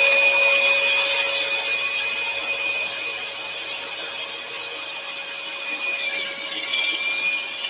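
Axminster AT406SS scroll saw running and cutting a yew panel, with a dust extractor drawing air through the cut. It makes a steady hiss with a faint high whine.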